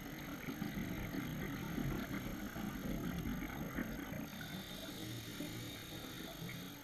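Muffled underwater rumble of a scuba diver's exhaled bubbles, heard through the camera housing. It swells for a few seconds and then eases, and a faint steady high tone comes in about four seconds in.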